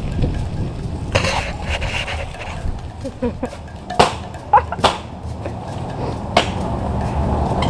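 Bicycles coming to a stop: a few sharp clicks and knocks of the bikes being handled over a steady low rumble of wind and street noise.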